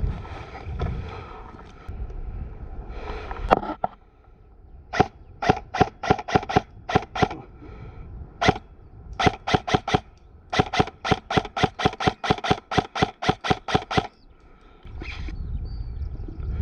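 Airsoft electric gun firing single shots, each a sharp click. About five seconds in comes a string of shots a few per second, then near the end a fast, even run of about five shots a second. Rustling noise fills the first few seconds.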